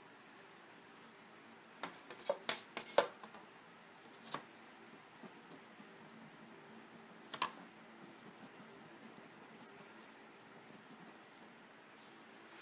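Prismacolor colored pencil scratching on UART sanded paper: a quick cluster of sharp scratchy strokes and taps about two to three seconds in, single ones a little later, then fainter short strokes.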